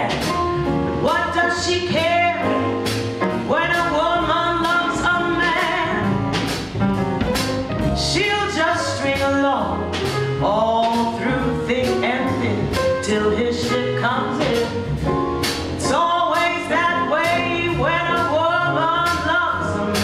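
A woman singing a slow jazz song with a small band of upright bass, piano and drum kit, the cymbals keeping a steady beat.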